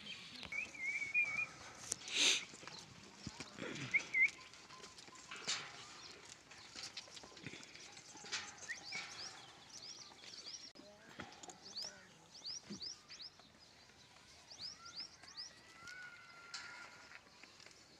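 Herd of goats moving about on sand, fairly quiet: scattered knocks and shuffles with an occasional brief call. Short high chirps come through it, thickest in the middle stretch, like small birds chirping.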